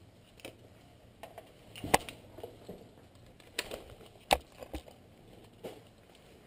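Footsteps on dry ground littered with twigs and brick debris: irregular snaps and crunches, two sharper cracks about two seconds in and just past four seconds.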